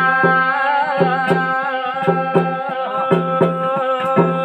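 Garhwali jagar music: a steady, driving hand-drum rhythm with sharp strokes several times a second, under one long held melodic note.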